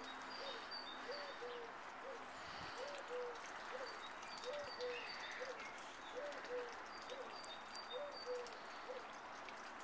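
A pigeon or dove cooing in repeated three-note phrases, the middle note the longest, a phrase about every second and a half. Faint high chirps from small birds come in and out over a steady background hush.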